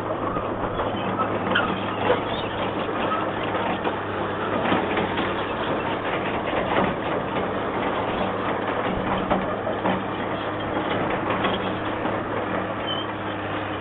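Excavator's diesel engine running steadily with a constant low hum, with scattered knocks and clanks over it.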